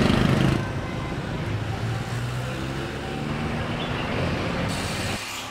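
Road traffic noise, with engines running steadily; the sound cuts off abruptly near the end.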